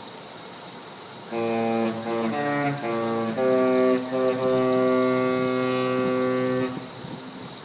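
The Disney Dream cruise ship's musical horn playing a tune: a quick run of notes changing every half second or so, then a long held note, cutting off about seven seconds in.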